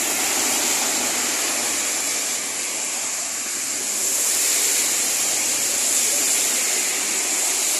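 Steady hiss of heavy rain mixed with traffic on a wet road, swelling slightly about halfway through as a vehicle passes.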